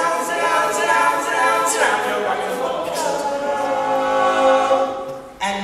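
Male a cappella group singing held chords in close harmony, the pitches shifting every second or so; the sound thins out about five seconds in and a new chord comes in just before the end.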